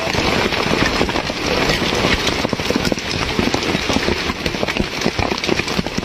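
Heavy hail pelting down: a dense, continuous clatter of many small hailstone impacts over a steady hiss.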